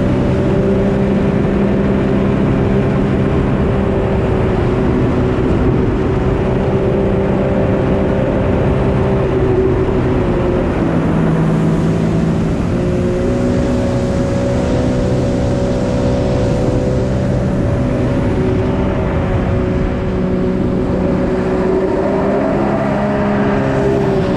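Jet ski engine running steadily at cruising throttle. Its pitch shifts about ten seconds in, steps up again a couple of seconds later, and falls at the very end as the throttle eases.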